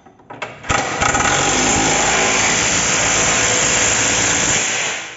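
Impact wrench hammering a 21 mm bolt tight on the rear mounting of a Chevrolet Spin's front lower control arm. It is loud and runs steadily for about four seconds, starting under a second in and dying away just before the end.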